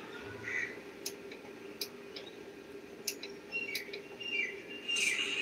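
A few short, light clicks, spaced irregularly, over a faint steady hum: the sound of buttons being pressed while files are picked on a projector's menu.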